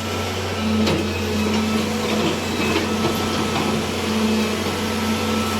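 Road cutting machine running steadily, a constant mechanical drone and hum, with a faint knock about a second in.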